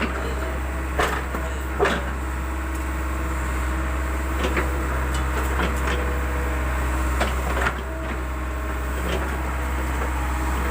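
JCB backhoe loader's diesel engine running steadily, with scattered knocks and clanks; the hum dips slightly a little past halfway.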